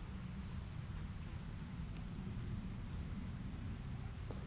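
Quiet woodland ambience: a steady low rumble with a faint thin high tone over it that stops near the end, and a few faint short chirps, like small birds or insects.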